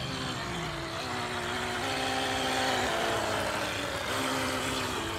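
Small brushed electric motor of a cheap RC speedboat whining under throttle, its pitch jumping up and down a few times, over a hiss of water. The boat cannot get up on a plane, and the owner hears the motor as struggling: "something is not happy in there."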